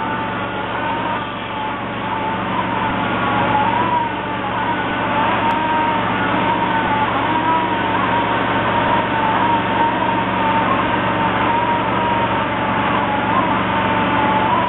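Stucco spraying rig's pump and engine running steadily, with a wavering high whine over a low hum.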